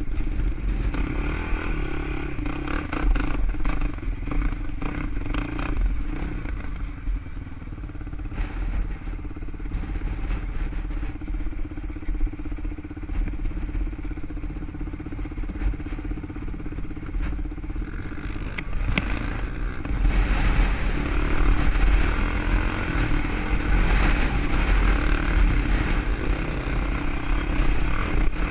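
ATV engine running steadily on the ride, getting louder about two-thirds of the way through.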